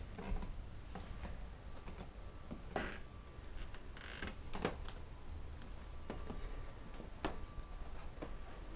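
Quiet room with a low steady hum and scattered faint clicks and short rustles: someone creeping stealthily and handling a camera.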